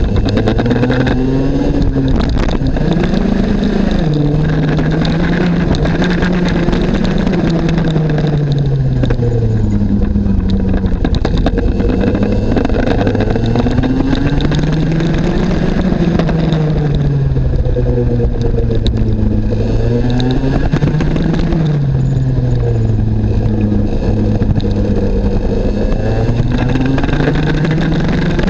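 IAME X30 Junior 125cc two-stroke single-cylinder kart engine at full race load, recorded onboard. Its note climbs as it accelerates out of corners and drops each time the driver lifts and brakes for the next turn, several times over.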